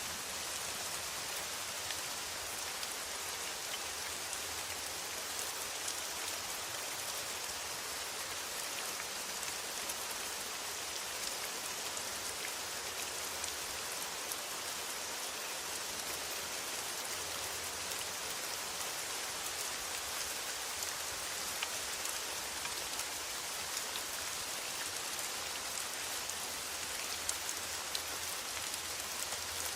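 Steady rain falling on a metal roof: an even hiss with scattered sharper ticks of individual drops.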